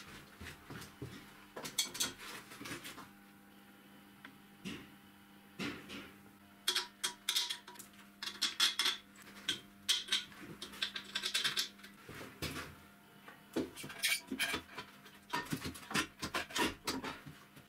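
Clanks, taps and clicks of steel frame parts and hand tools being handled and fitted together, coming in irregular bursts with a quieter stretch around the fourth second.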